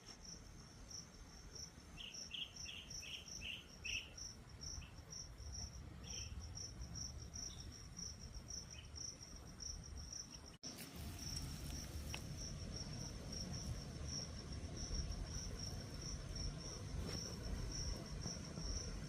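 Insects chirping in a steady pulsing trill, a few pulses a second, with a low rumble underneath. About two seconds in, a short run of around six quick, lower chirps.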